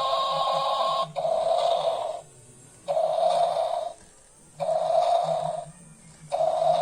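A toy T-rex's electronic roar sound effect playing through its small speaker, repeated in bursts about a second long with short gaps between them.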